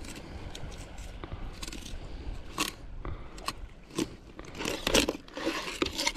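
Fillet knife cutting a trevally fillet off along the backbone and through the rib bones: irregular crunching and scraping strokes, coming thicker and louder about four and a half seconds in.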